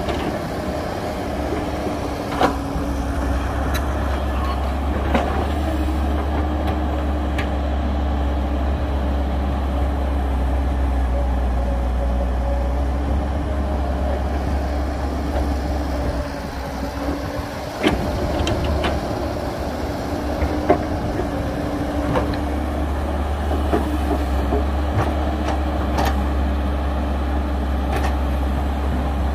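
A heavy diesel engine on earthmoving machinery runs steadily throughout, with a low rumble and a held tone. Several sharp knocks break in at irregular intervals, the loudest about 18 and 21 seconds in.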